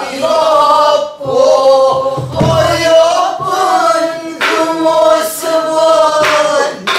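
Voice singing a Korean Namdo folk song, long held notes that waver in pitch, broken by short breaths.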